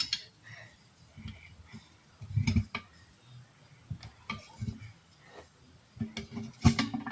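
Metal tools knocking and clinking against a wheel rim as a tyre is worked off it by hand: scattered irregular strikes, the loudest about two and a half seconds in and again near the end.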